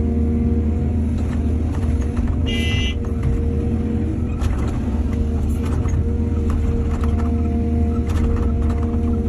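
Heavy diesel engine of an excavator running steadily at working speed, a deep continuous drone. A brief high squeal comes about two and a half seconds in, and scattered clanks and knocks follow.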